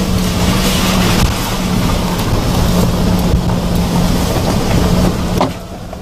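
Hyundai Porter 4WD truck driving on a rough gravel forest road: a steady engine drone with scattered knocks and rattles over the stones. It gets noticeably quieter about five and a half seconds in.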